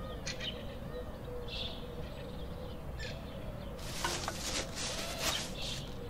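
Birds calling over a steady low background hum, joined about four seconds in by a run of sharp clinks and clatter.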